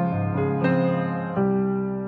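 Background piano music: a few single notes, then a chord struck near the end and left to ring and fade.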